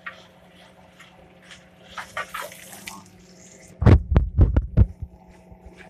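About six quick, deep thumps and knocks close together about four seconds in, over a faint steady hum, with a few small clicks and rustles before them.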